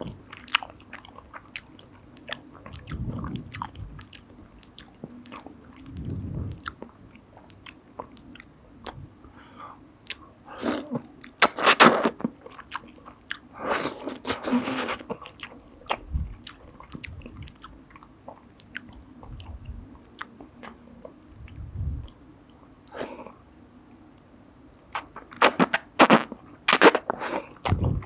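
Close-up eating of soup noodles: wet chewing and mouth clicks, with a few longer, louder slurps around the middle and a run of loud sharp ones near the end.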